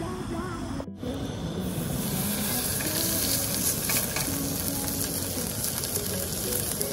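Raw hamburger patty sizzling in a hot skillet on a small gas camp stove. The sizzle starts about a second in and then holds steady as a dense hiss.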